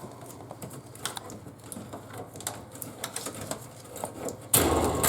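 Light clicking and ticking as the power cable and connection parts are handled, then a louder rustling scrape lasting about half a second near the end.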